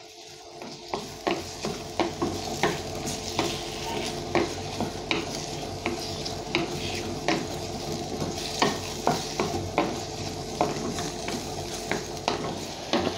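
Wooden spatula stirring and scraping sliced onions and tomatoes in a black pot, the vegetables sizzling steadily in hot coconut oil. The spatula strokes come about three times a second over the sizzle.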